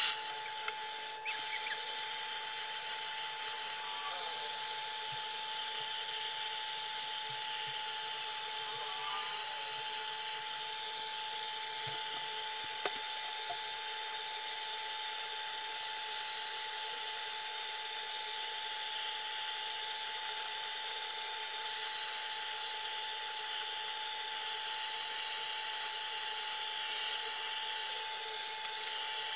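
Handheld butane torch burning with a steady hiss as its flame is played over a pine board to char the surface, after a couple of sharp clicks right at the start.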